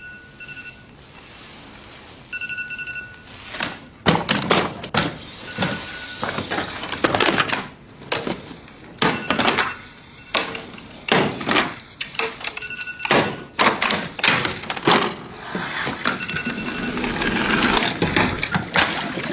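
iPhone alarm beeping in short bursts of a steady tone, again and again, with a run of loud, sharp thuds and knocks starting about four seconds in and continuing between the beeps.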